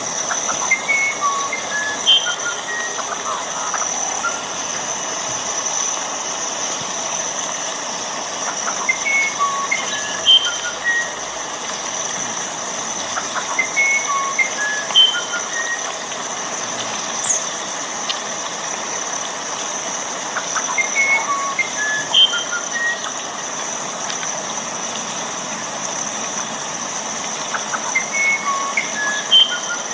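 Steady rain falling, with a songbird repeating the same short phrase of chirps and whistles about every six to seven seconds.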